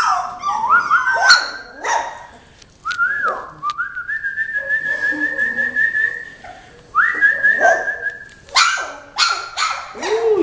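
Young Belgian Malinois puppies whining in high, thin, drawn-out tones, several held for a second or two with a slight waver, mixed with short yips and barks.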